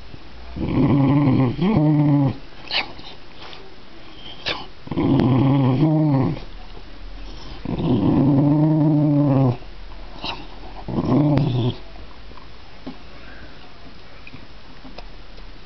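A dog growling and grumbling while eating soup from its bowl: five low, drawn-out growls of about a second each, with a few sharp clicks between them.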